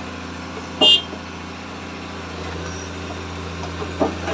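Komatsu hydraulic excavator's diesel engine running steadily, with a brief, sharp, high-pitched ringing sound about a second in and a short knock near the end.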